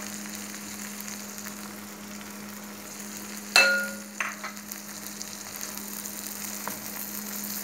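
Mashed potatoes with tomato and oil sizzling in a hot wok while a spatula stirs and scrapes through them. About three and a half seconds in comes a sharp metallic clink that rings briefly, followed by a smaller knock.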